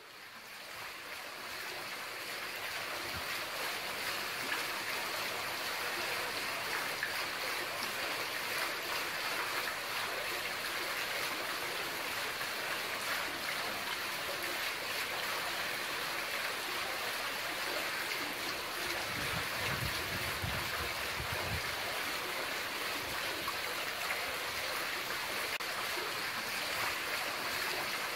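Water pouring steadily from the spouts of a mosque's şadırvan ablution fountain and splashing into its basin, fading in over the first few seconds. A brief low rumble comes about two-thirds of the way through.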